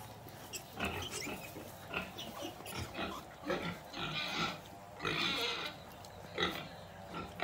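Sow and her twelve-day-old piglets grunting in a run of short calls, with two longer, higher squeals about four and five seconds in.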